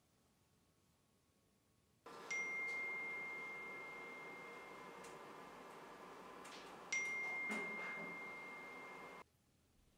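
Smartphone message alert chiming twice for incoming messages, about four and a half seconds apart: each a sharp ping that settles into a steady high tone, the second cutting off suddenly. Near silence for the first two seconds.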